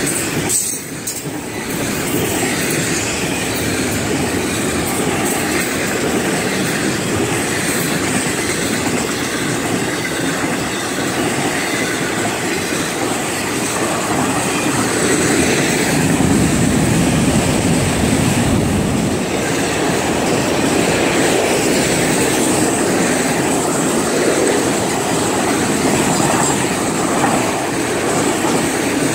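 Freight train cars (double-stack container well cars, then autorack cars) rolling past on the track: a steady, loud rumble and rattle of wheels on rail.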